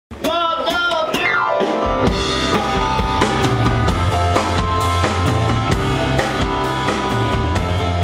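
Rock band music: a drum kit with bass drum and snare hits, electric bass and keyboard. It opens with a wavering, falling glide in pitch over the first second and a half, then the full band comes in with a steady beat.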